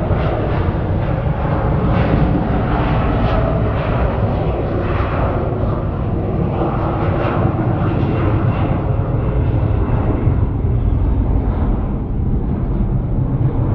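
Airbus A330 freighter's jet engines at take-off thrust: a loud, steady roar with a deep rumble, its higher part easing off a little near the end.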